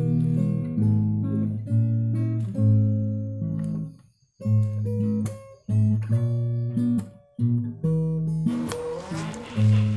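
Background music: a plucked guitar tune, with a few brief pauses, growing fuller near the end.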